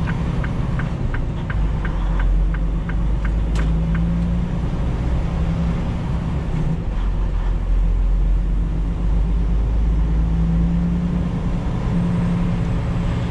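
Freightliner Cascadia semi truck's diesel engine pulling away, a steady low drone heard inside the cab. About three quick, light ticks a second run through the first few seconds.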